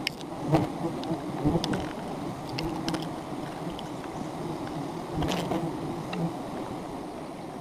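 Swarm of wild honeybees buzzing around their open comb as a dense, steady drone, with scattered sharp clicks and taps over it.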